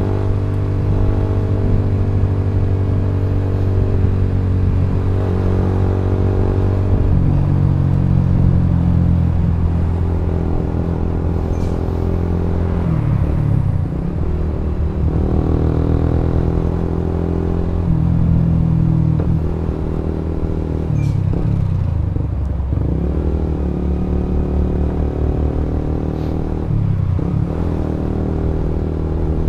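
Suzuki GSX-R150's single-cylinder engine running at cruising speed, its pitch rising and falling several times with the throttle.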